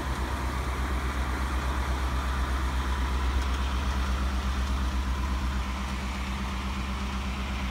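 2018 Ford F-150 pickup engine idling steadily, with an even low exhaust pulse.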